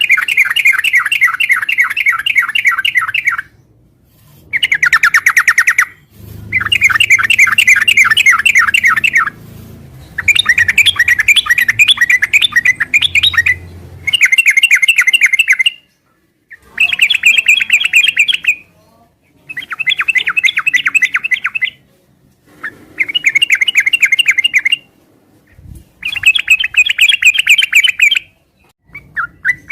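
Yellow-vented bulbul (trucukan) singing in full voice: about eight loud phrases of fast, repeated chattering notes, each two to four seconds long, with short pauses between them.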